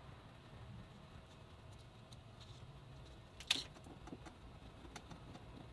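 Faint clicks and taps of a small plastic vent fitting and pliers being handled, with one sharper click about three and a half seconds in, over a low steady hum.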